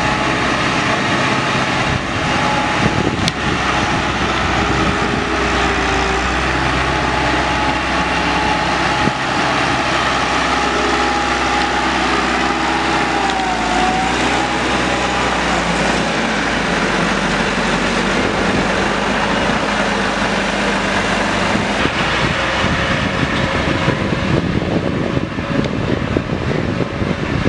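Massey Ferguson 375 tractor's four-cylinder diesel engine running steadily while the tractor pulls a hitched implement through dry soil.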